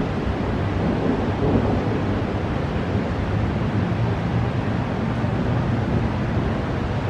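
Steady rushing noise of a storm outdoors, heaviest in the low end, with no thunderclap.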